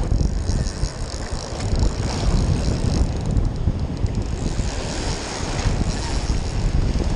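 Wind buffeting the microphone over the rush of breaking surf and swirling water around a wading angler.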